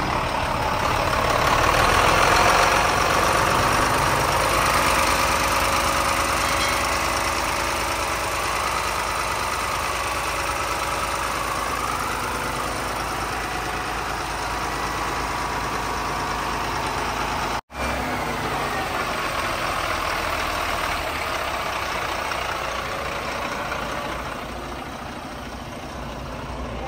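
A bus's rear-mounted diesel engine idling steadily. The sound breaks off for an instant about two-thirds of the way through.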